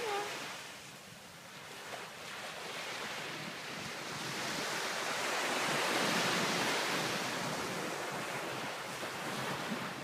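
Surf washing on a beach: the wash dies down about a second in, then a wave builds over several seconds to its loudest a little past halfway and slowly eases off.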